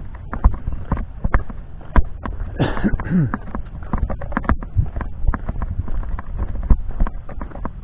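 Footsteps and handling knocks of a handheld camera carried on a walk, irregular sharp taps over a low rumble. About two and a half seconds in, a short pitched sound slides down in pitch.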